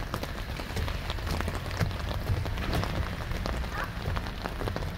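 Rain falling on an umbrella held just above the microphone: a steady hiss with a dense run of sharp drop taps.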